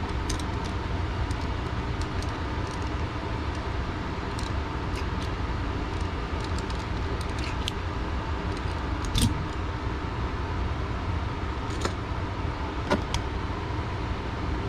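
Scattered light metallic clicks and clinks from the RV TV antenna's crank handle and mounting hardware being taken apart by hand, over a steady low hum.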